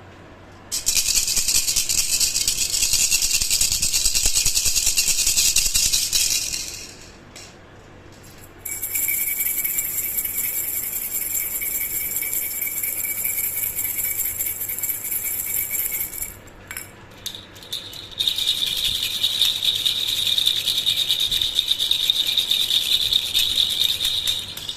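Handheld baby rattle (jhunjhuna) shaken rapidly and continuously in three long spells, with short pauses between them. Each spell has its own bright ringing pitch, the highest in the last.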